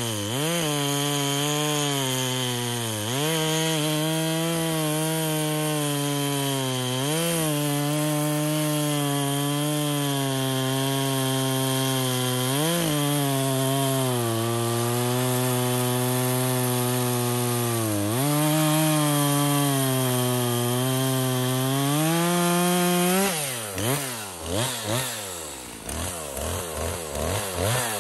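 Poulan Pro PR5020 50cc two-stroke chainsaw cutting through a pine log, the engine held at steady high revs under load with a few brief dips in pitch. About 23 seconds in it cuts through, and the revs then rise and fall quickly several times.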